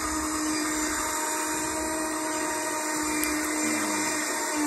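Electric fishing reel's motor whirring steadily as it winds line in, with a hooked fish on the bent rod.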